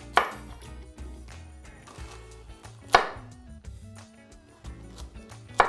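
Kitchen knives chopping carrots and cucumber on cutting boards, in quick light taps, over background music. Three loud sharp hits, evenly spaced about every three seconds, stand out above the chopping.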